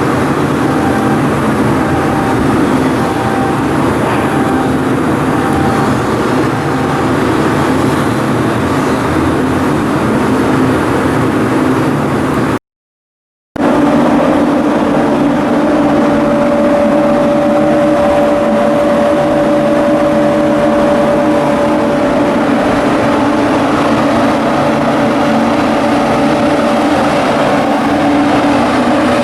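Ship's diesel engine running steadily and loudly, with a steady hum and a higher whine over it. The sound drops out completely for about a second midway, then carries on.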